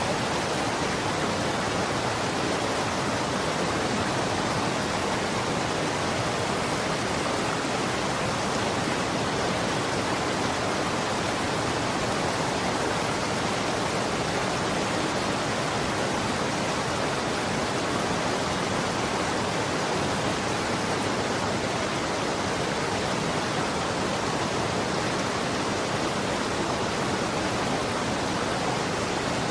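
Running water rushing steadily, an even, unbroken hiss.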